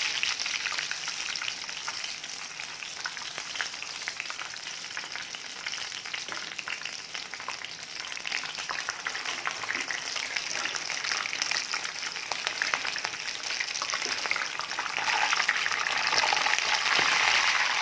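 Hot oil sizzling and crackling as gram-flour-battered chicken leg pieces deep-fry. The sizzle grows louder over the last few seconds.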